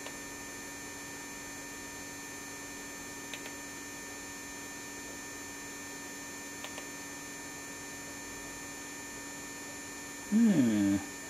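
Steady hum of the Keithley 150B microvolt ammeter's mechanical chopper running, with two faint ticks partway through.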